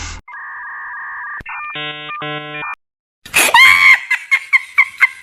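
Cartoon sound effects: a steady two-tone electronic buzz, then a pulsing electronic beep. After a short break comes a loud, high shriek, followed by a rapid run of short pitched cries at about five a second.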